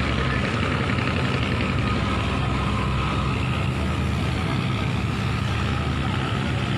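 Boat engine running steadily with a low drone.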